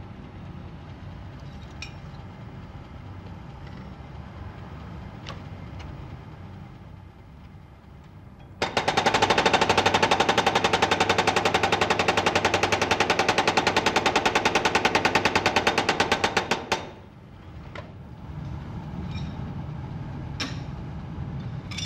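File-cutting machine's chisel hammering teeth into a steel file blank: a rapid, even run of metal strikes starts about nine seconds in and stops about eight seconds later. A low machine rumble runs before and after it.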